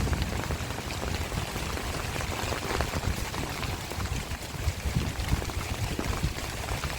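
Heavy rain falling: a steady hiss dotted with the patter of many drops.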